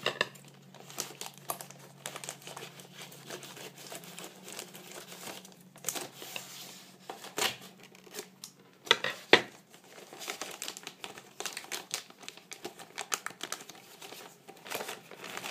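Paper sticker sheets and packaging rustling and crinkling as they are handled and peeled, with a few sharp clicks, the loudest a little after halfway.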